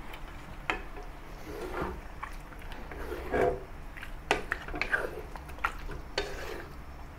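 A wooden spatula and a silicone spatula stirring chicken pieces and potato chunks in a wok: wet scraping and shuffling, with a few short sharp knocks against the pan.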